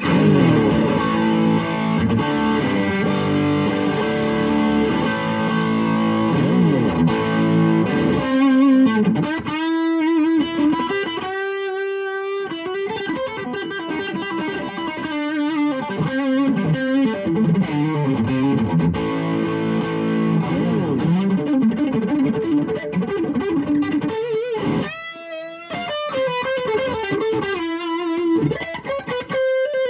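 Electric guitar, a Fender Stratocaster, played through a BJFE Arctic White fuzz pedal into a Tone King Imperial MkII amp, giving a fuzzed, distorted tone. It opens with ringing chords for several seconds, then moves to single-note phrases and held notes with brief pauses.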